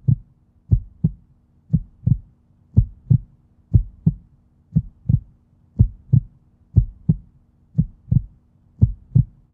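Heartbeat sound effect: paired low lub-dub thumps, about one pair a second, steady throughout.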